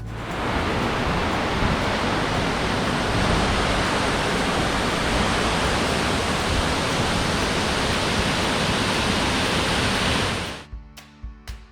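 Waterfall rushing: a steady, even noise of falling water. It cuts off abruptly near the end and background music begins.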